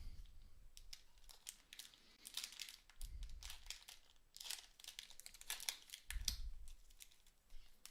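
Faint crinkling and rustling of NBA Hoops Premium trading card packs and cards being handled, with a few soft thumps.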